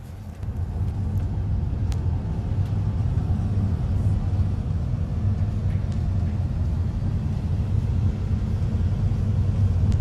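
Steady low rumble of road and engine noise inside a moving car's cabin, picked up by a phone; it comes up within the first half second and holds even.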